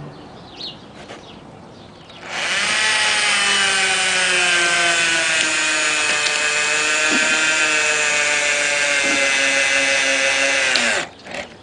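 Cordless drill motor running for about nine seconds in one steady whine, its pitch sagging slowly and dipping just before it cuts off: the battery is going dead.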